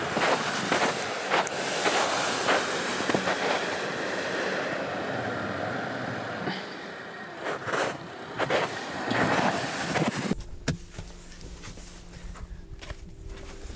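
Wind buffeting the microphone with a loud rushing and crackling, cut off abruptly about ten seconds in by a much quieter stretch with a faint steady low hum and a few light clicks.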